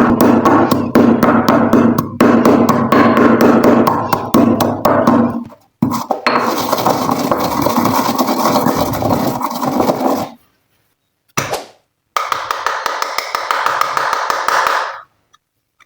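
Slime being squished and mixed by hand, a dense run of rapid sticky clicks and crackles. It stops dead a few times in sudden silent gaps, twice near the middle, then stops for good near the end.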